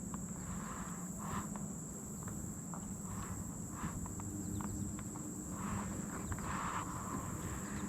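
Steady high-pitched drone of late-summer insects, crickets or katydids, with a few faint clicks and a low hum underneath.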